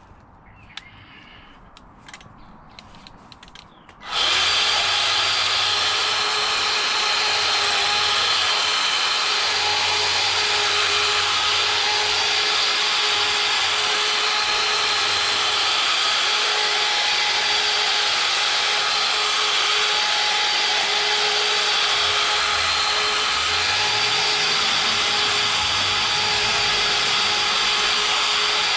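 Faint footsteps and clicks, then about four seconds in a string trimmer starts abruptly and runs at a steady, unchanging full speed with a constant whine.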